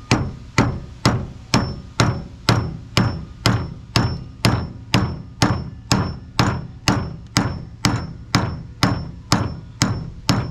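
Steady hammer taps, about two a second, each with a short high ring, on the end of a Westerbeke diesel fresh water pump's shaft, trying to drive it out through its bearings with the pump resting on wooden boards. The shaft is not moving: the blows only press the pump into the wood.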